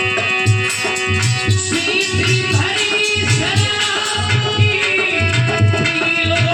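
Indian devotional music: a hand drum plays a steady rhythm with deep bass beats under held, organ-like notes, and a wavering melody line comes in about two seconds in.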